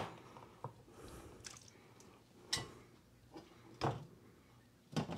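A few faint, short knocks and clicks spread over a few seconds: kitchen handling noises as marinated pork chops are lifted out of a glass baking dish, before any sizzle.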